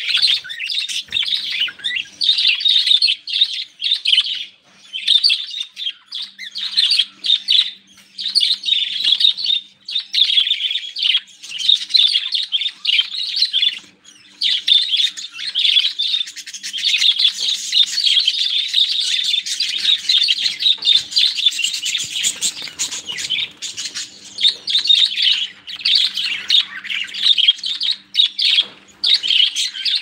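A flock of budgerigars chattering and warbling together, a dense stream of high chirps with short breaks every few seconds.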